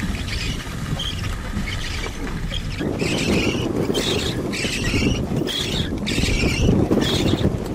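Strong storm wind buffeting the microphone, a low rumble that turns louder and rougher about three seconds in, with irregular bursts of higher hissing.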